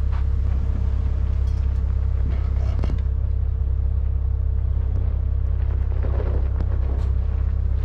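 A Jeep's engine and drivetrain rumbling steadily at low speed on a rocky dirt trail, with a few light knocks about 3 and 7 seconds in.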